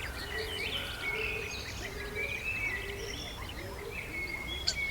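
Several wild birds singing and calling together, a mix of overlapping high chirps and trills, with a lower note repeating beneath them and a single sharp click near the end.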